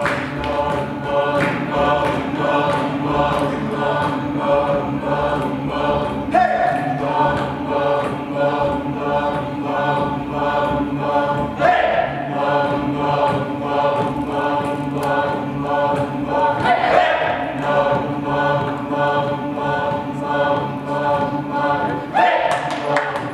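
A group of voices chanting long held notes together over a steady rhythmic beat, with a new swell every five or six seconds.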